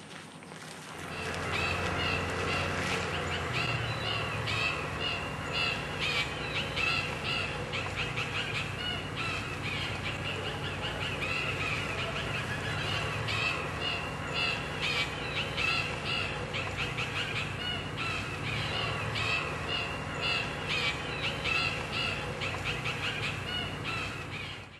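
Birds calling over and over in a dense chorus of short, repeated calls, over a steady low rumble.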